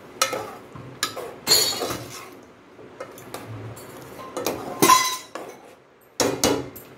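A metal ladle stirring thick chicken curry in a metal pot. It clinks and scrapes against the pot's sides in a run of uneven knocks, the loudest about five seconds in with a brief ring.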